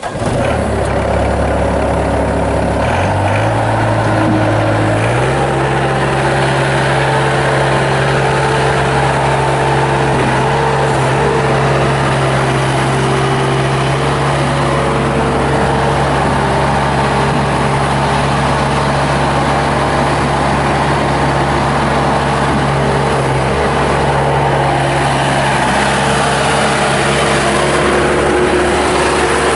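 A Bobcat S250 skid steer's turbocharged Kubota diesel engine starts and runs. About 3 seconds in, and again about 5 seconds in, the throttle is raised and the engine speed steps up. It then runs steadily at the higher speed.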